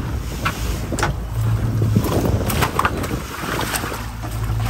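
Mercury outboard motor running steadily with the boat under way, water rushing in the wake and wind on the microphone. A few short sharp knocks ring out about a second in and again a little past the middle.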